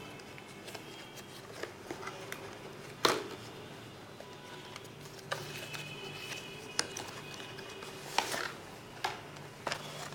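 Handling noise from unboxing a Bluetooth headset: cardboard and plastic packaging being handled, with scattered clicks and knocks, the loudest about three seconds in and a few more near the end. A faint steady hum lies underneath.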